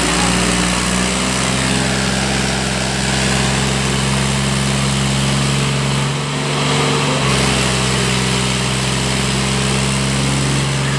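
Mahindra tractor's diesel engine running steadily at a constant pitch as it hauls a loaded straw trolley through a waterlogged ditch.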